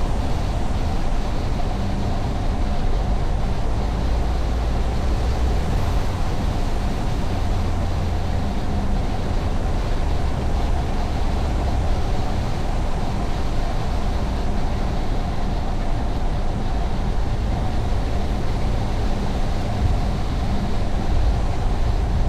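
Car driving at steady road speed: continuous tyre and engine noise with a low rumble.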